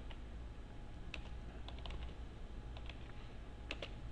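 Computer keyboard being typed on: a handful of separate keystrokes at an uneven pace, over a steady low hum.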